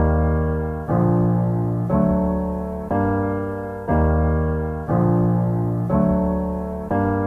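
Background piano music: sustained chords struck about once a second, each fading before the next.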